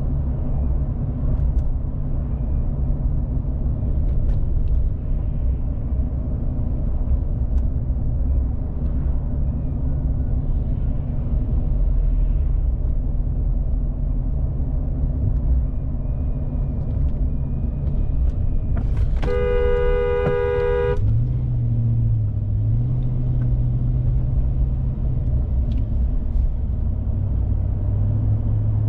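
Steady engine and road rumble from a car driving, broken about two-thirds of the way in by one car horn blast lasting about a second and a half: a warning honk at a driver who failed to yield.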